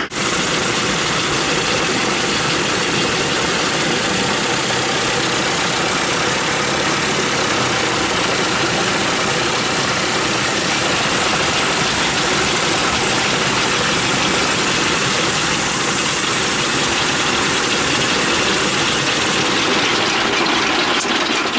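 The Ford Tri-Motor's three Pratt & Whitney radial engines running at low power on the ground, a loud, steady engine noise heard from inside the cockpit. A few light clicks come near the end.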